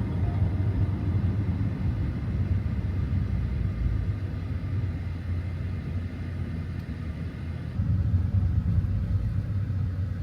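Dodge Challenger Scat Pack's 6.4-litre 392 HEMI V8 and the road noise of the car on the move, heard from inside the cabin as a steady low drone.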